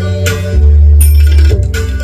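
Loud music with a deep, heavy bass line and drum hits.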